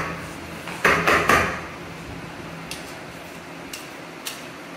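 Light clatter of kitchen utensils: a short scraping burst about a second in, then a few faint clicks over a low steady background.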